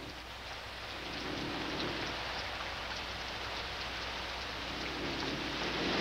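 Steady, heavy tropical rain falling in a downpour, a dense even hiss of drops.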